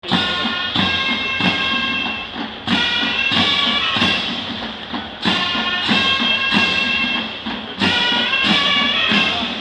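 Ottoman mehter (Janissary) band playing a march: shrill zurnas carry the melody over heavy drum and cymbal strokes. The strokes fall in groups of three, repeating about every two and a half seconds.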